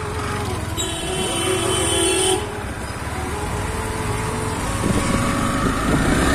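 Road traffic: a vehicle horn sounds steadily for about a second and a half, stopping abruptly, then an engine's pitch climbs as it accelerates.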